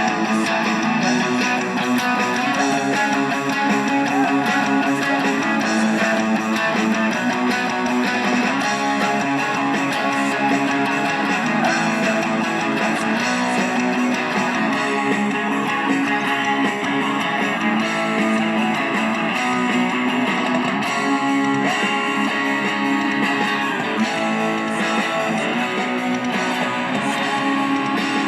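Band music led by strummed guitars over a bass line, playing steadily throughout.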